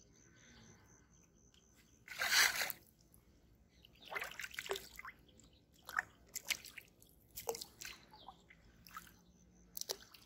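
A hooked fish splashing and thrashing at the surface of a pond: one loud splash about two seconds in, then a run of shorter, irregular splashes as it is played and lifted out of the water.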